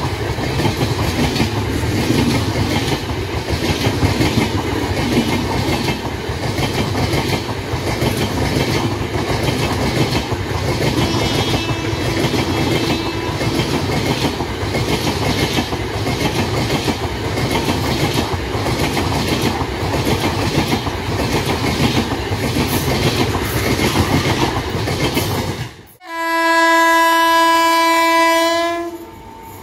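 Humsafar express coaches hauled by a WAP7 electric locomotive running past close by at speed, a steady loud noise of wheels on rail. It cuts off suddenly near the end, and an approaching WAP7 electric locomotive then sounds one long horn blast of about three seconds.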